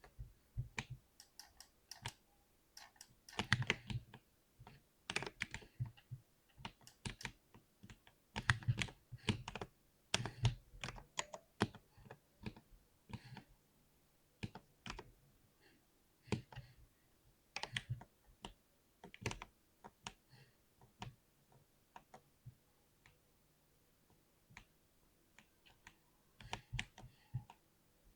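Typing on a 60% keyboard: irregular keystroke clicks in bursts, with short pauses between runs.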